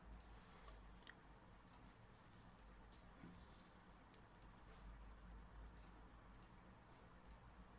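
Faint computer mouse clicks, a handful of irregular single clicks about a second apart, over a low steady hum.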